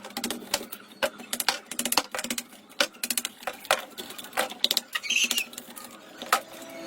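Irregular sharp clicks, taps and short rattling scrapes of tools and metal parts being handled during restoration work on an old water pump.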